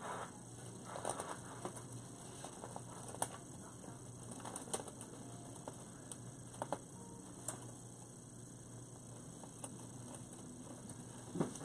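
Faint rustling and scattered sharp clicks of hands working pipe cleaners through a dry grapevine wreath to fasten a sign on.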